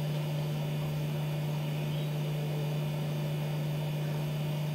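Steady low electrical hum at one pitch, with faint hiss behind it.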